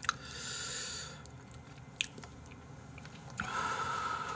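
A person chewing and slurping Chapagetti noodles close to the microphone, with two drawn-out noisy stretches about a second long, one near the start and one near the end, and a single click in between.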